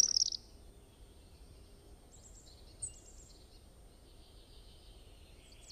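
Faint outdoor background noise with a few faint, high bird chirps, one at the very start and a few more about halfway through.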